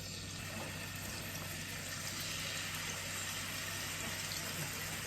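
Chicken pieces sizzling in hot olive oil in a frying pan: a steady hiss that grows a little louder about two seconds in, over a low steady hum.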